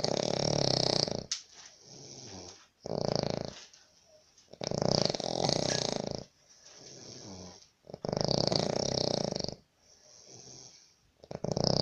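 A sleeping man snoring in a steady rhythm: five loud, rasping snores, each up to about a second and a half long, with quieter breaths between them.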